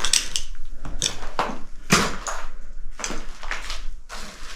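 Footsteps on a hard, debris-strewn floor or stairs, about two sharp steps a second.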